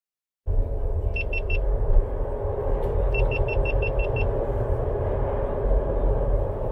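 Steady low road rumble of a car driving slowly. Two runs of short high electronic beeps sound over it, three quick beeps about a second in and then seven more at about six a second around the third and fourth seconds.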